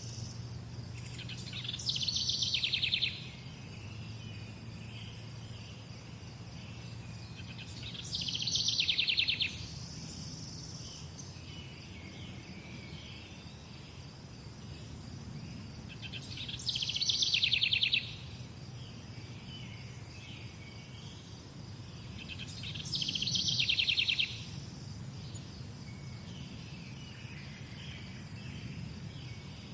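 Birds singing: one bird repeats a loud, rapid trilled phrase about every seven seconds, four times, with softer chirps from other birds in between over a low steady background hum.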